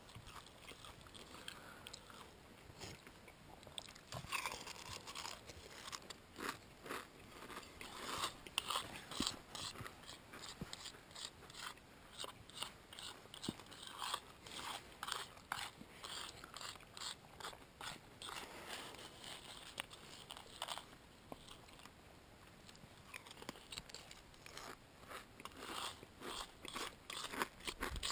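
Close-up chewing and crunching of dry Raisin Bran flakes eaten without milk: irregular crisp crunches in clusters, with a few quieter pauses between mouthfuls.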